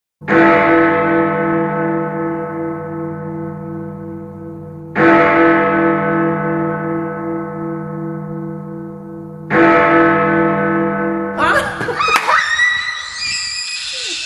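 A deep bell struck three times about four and a half seconds apart, each stroke ringing out slowly with a pulsing hum. About eleven and a half seconds in, the bell gives way to a man and a young girl screaming and cheering with excitement.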